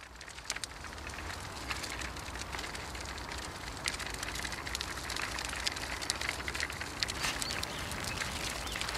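Outdoor rural ambience fading in: a steady rush of noise with a low rumble underneath and scattered light clicks and crackles.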